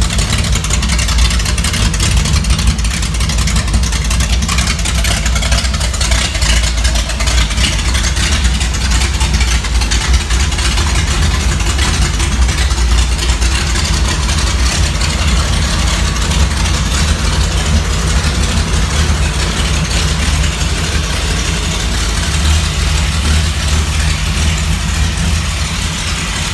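Bored-out Chevrolet 292 inline-six with a mild cam idling steadily and loudly.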